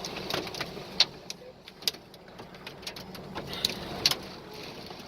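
Dime-sized hail striking, irregular sharp cracks and taps over a steady hiss of the storm, the loudest hits about a second and two seconds in.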